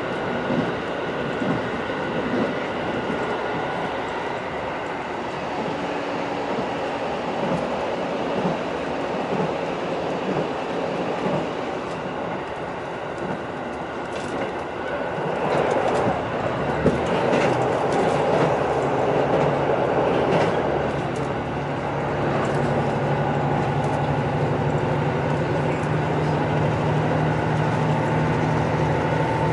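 Cabin running sound of a JR Central KiHa 85-series diesel railcar at speed: a steady rumble of wheels on rail, growing louder and rougher about halfway through with some clicking. A steady low diesel drone follows, with a faint whine rising slightly near the end.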